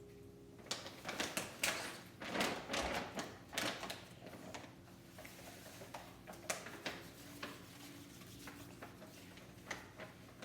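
Irregular taps, clicks and scrapes of containers and a scoop being handled while baking soda is added, busiest in the first few seconds and sparser after.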